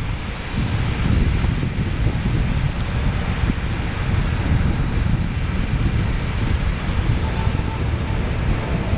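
Storm wind buffeting the microphone: an uneven low rumble with a steady hiss over it.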